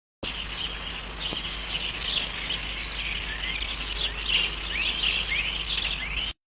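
A dense chorus of many small birds chirping, quick overlapping high chirps and short glides, over a steady low hum. It starts and cuts off abruptly.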